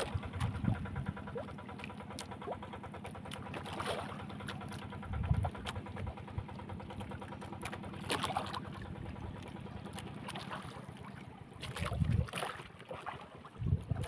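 Steady engine hum on a small boat, with wind buffeting the microphone in a few low thumps and some light knocks.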